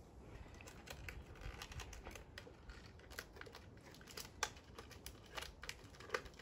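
Clear plastic toy packaging crinkling and crackling as hands twist and pull at it to get it open, in irregular crackles with a few sharper ones in the second half.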